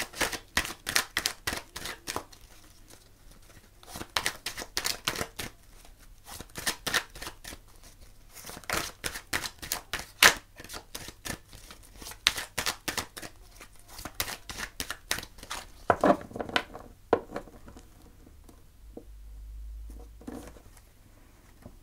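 A deck of oracle cards being shuffled by hand: quick runs of papery card clicks, several a second, for about sixteen seconds. The shuffling then stops, with a few soft knocks as the deck is squared.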